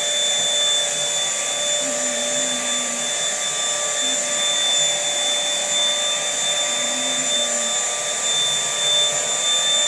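Mini Dirt Devil vacuum cleaner running steadily with a high-pitched motor whine.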